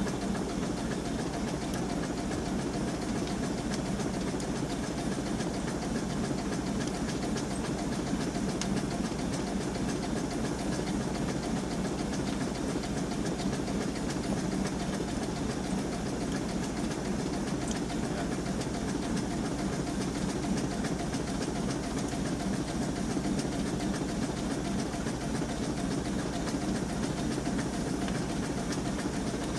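The steam launch Consuta's steam engine running steadily under way, a rapid, even beat.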